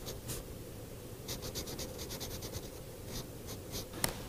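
Pen scratching across paper in short strokes as someone draws, in several bursts with pauses between. A single sharp click comes near the end.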